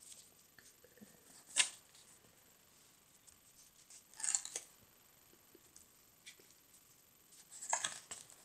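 Paper pages of a spiral-bound sketchbook being handled and turned by hand: a brief rustle a little over a second in, a longer rustle about four seconds in, and another near the end.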